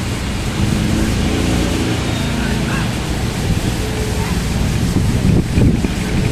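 Steady wind rumble on the microphone.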